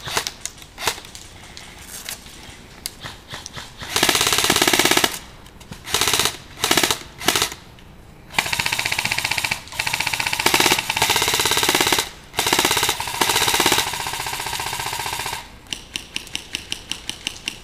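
Airsoft rifles firing. A few scattered single shots come first, then long full-auto bursts from about four seconds in, each lasting one to three seconds. Near the end comes a run of quick single shots, about five a second.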